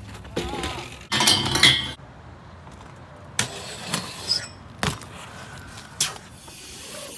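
BMX bike riding on concrete: tyres rolling, with sharp knocks and metallic clinks as the bike lands and strikes ledges. A louder, longer noise comes about a second in.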